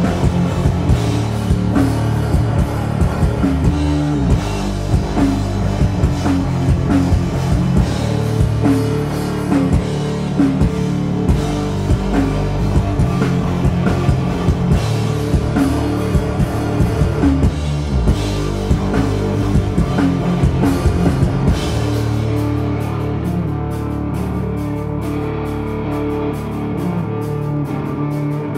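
Rock band playing live: distorted electric guitar, bass guitar and drum kit in a heavy, loud passage. About three quarters of the way through the drums stop and the guitars ring on alone.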